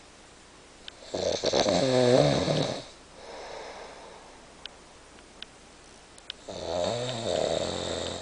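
A sleeping man snoring: two loud, buzzing snores of nearly two seconds each, about five seconds apart, with a quieter breath between them.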